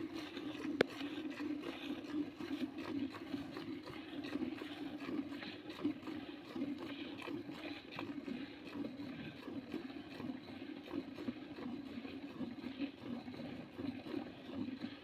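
Milk squirting into a steel bucket as a cow is milked by hand, a quick, steady, fluttering stream of squirts from alternating hands. A single sharp click about a second in.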